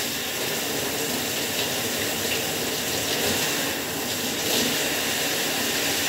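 Water spraying steadily from a handheld LED shower head onto the shower wall, a constant hiss of running spray.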